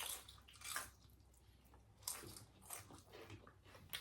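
A person chewing food close to the microphone, a few short, faint bursts of chewing and mouth sounds.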